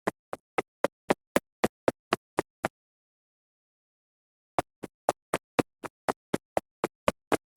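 Footstep sound effect: quick, even taps about four a second, in a run of nearly three seconds, then a pause of about two seconds, then another run.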